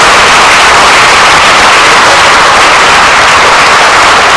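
Loud, dense audience applause.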